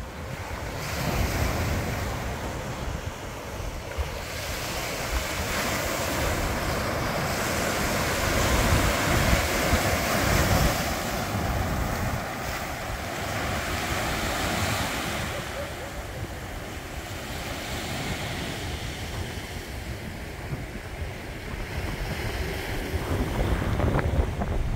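Sea surf breaking and washing up a coral-rubble beach, swelling and easing in slow surges, with wind buffeting the microphone as a low rumble.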